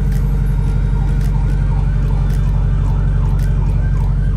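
Steady low rumble of a vehicle's engine and road noise, heard from inside the moving vehicle, with an emergency vehicle's siren yelping in quick repeated up-and-down sweeps, about two to three a second, more faintly behind it.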